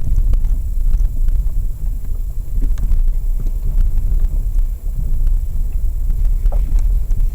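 Lada Vesta SW on the move, a steady low rumble of road and tyre noise with a few faint, scattered clicks and knocks.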